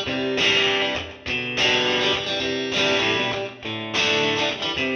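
Background music: a guitar-led track playing chords that change about once a second.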